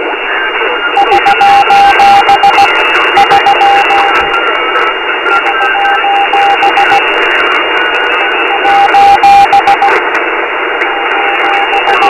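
Morse code SOS distress signal: a single beeping tone keyed in repeated groups of short and long beeps, fading in and out of loud radio static and crackling interference.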